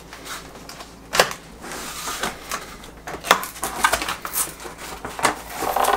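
Cardboard packaging of a Schluter Kerdi-Shower foam shower pan being opened and handled, with scraping and crinkling broken by several sharp knocks.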